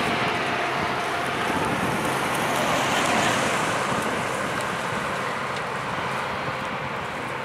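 Loram rail grinder grinding the rail as it moves away: a steady rushing hiss from the grinding stones over a low diesel engine hum. It is loudest about three seconds in, then slowly fades.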